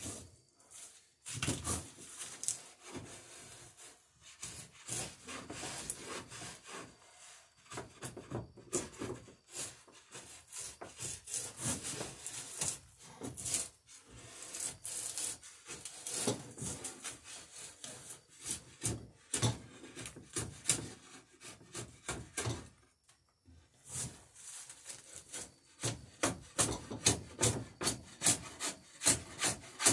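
Drawknife paring the edge of a wooden dory plank to cut the stern bevel: runs of short, quick scraping cuts in the wood, with brief pauses between runs.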